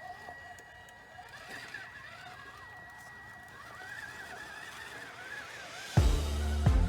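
Faint whine of an RC crawler's small electric motor and gears, wavering up and down in pitch as the throttle changes. Loud background music with a heavy beat cuts in near the end.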